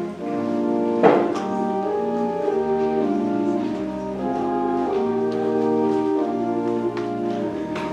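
Church organ playing sustained chords over low bass notes. A sharp knock sounds about a second in.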